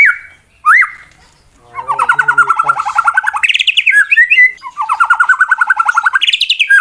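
Male white-rumped shama (murai batu) singing a challenge song: two short rising whistles, then two long fast rattling trills, each about a second and a half, broken by higher sharp notes. It is the aggressive fighting song used to provoke rival males.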